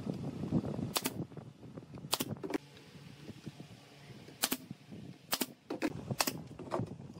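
DCA pneumatic brad nailer firing into wooden slats: about seven sharp shots at uneven spacing, a couple in quick pairs.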